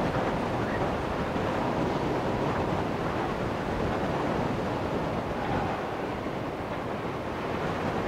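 Steady wind roar on the microphone, an even rushing noise with no distinct events, over the faint rumble of a rail yard.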